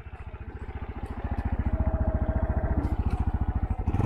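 Small trail motorcycle engine running with even, rapid firing pulses. It grows louder over the first second and a half, then holds steady.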